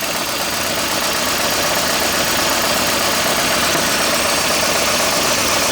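Toyota Corolla four-cylinder engine idling with a misfire: the number one cylinder is not firing. The engine runs steadily throughout.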